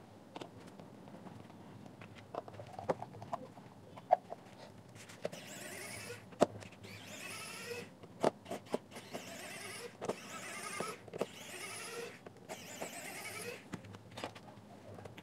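Small electric precision screwdriver whirring in five bursts of about a second each, backing out the plastic speaker housing's screws. Sharp clicks of the bit on screw heads come before and between the bursts.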